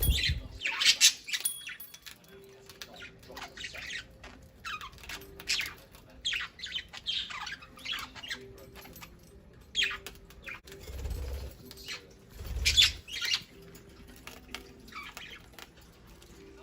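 Budgerigars giving many short, high chirps in quick, irregular succession, with a few low thumps, at the start and twice around three quarters of the way through, that may be wing flaps or birds landing.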